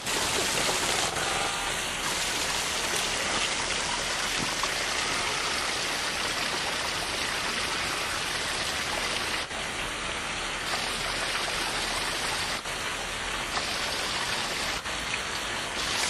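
Water showering down from a seeping, mossy cliff face, a steady fall of drops that sounds like rain.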